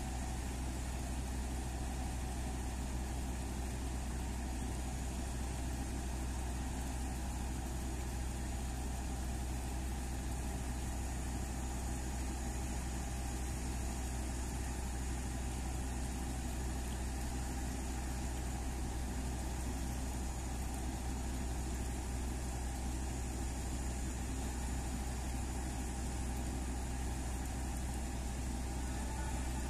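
Standing diesel passenger train idling: a steady low engine hum that does not change.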